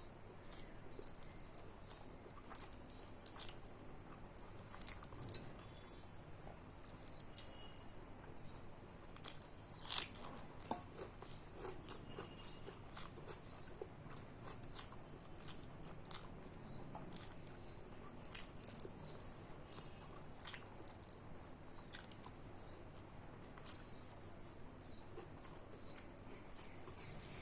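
Close-up chewing of a person eating rice with fish curry, dal and pumpkin fry: many short irregular mouth clicks, the loudest about ten seconds in.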